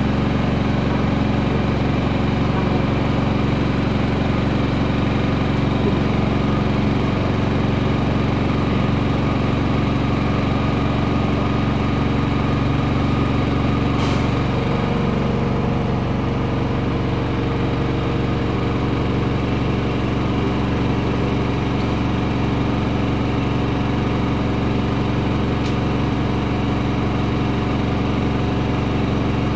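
Cummins diesel engine of a Güleryüz Cobra GM 220-LE city bus idling steadily while the bus stands still, heard from inside the passenger cabin. A single sharp click comes about halfway through.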